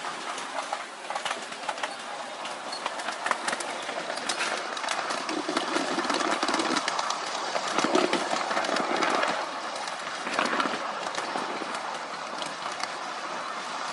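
Miniature railway train running along ground-level track, its wheels clicking over rail joints and points with a steady rolling rumble.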